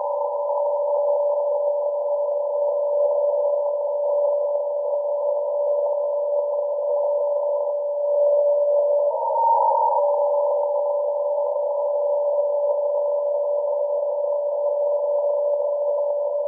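Longwave signal of DCF49, the 129.1 kHz radio teleswitching transmitter, received on an SDR in CW mode: a steady beat tone in band-limited hiss. At about 9 s the tone shifts up to a higher pitch for about a second, then returns to the first tone, as the transmitter's frequency-shift keying changes state.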